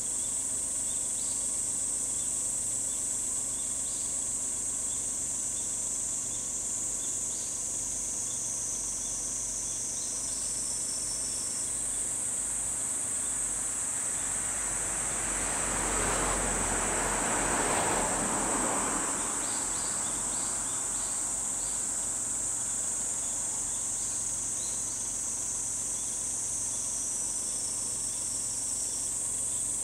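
A steady high-pitched drone of insects, with faint short chirps now and then. About halfway through, a rushing noise swells for a few seconds and fades.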